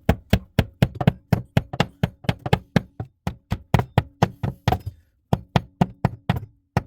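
Quick light taps, about four a second, driving wall-anchor inserts into the wall, with a short pause about five seconds in.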